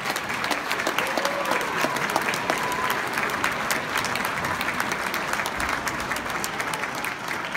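Audience applauding steadily, with a couple of faint shouts in the first three seconds.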